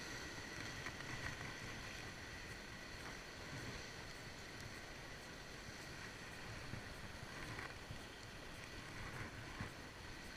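Faint, steady wash of sea swell breaking over rocks, with light wind on the microphone. A few small clicks are heard along the way.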